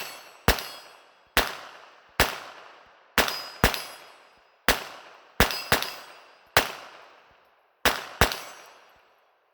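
Smith & Wesson M&P 15-22, a .22 LR semi-automatic rimfire, fired about a dozen times in an irregular string, shots between a third of a second and a second apart, sometimes in quick pairs. Each crack trails off in a ringing echo.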